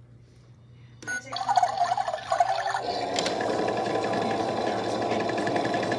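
Toy washing machine started with a click about a second in, giving a watery filling sound and then a steady motor whirr as its wash cycle runs.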